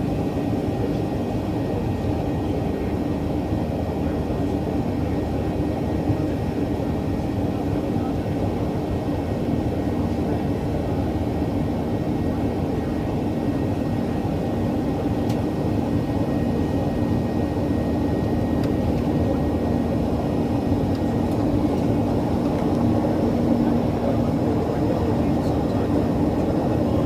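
Cabin noise of a Boeing 737-800 in flight: a steady drone from its CFM56-7B engines and the airflow, with a low steady hum.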